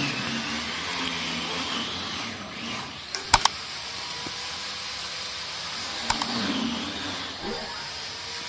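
Sharp metal clicks, one pair about three seconds in and another about six seconds in, as polished stainless steel ball fittings are handled and knocked against a stainless steel railing post, over a steady background hiss.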